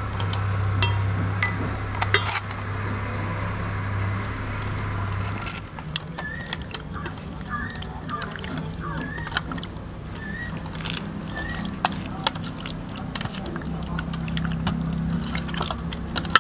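Hands mixing raw chicken into a wet spiced marinade in a stainless steel bowl: wet squishing with frequent light metallic clinks against the bowl.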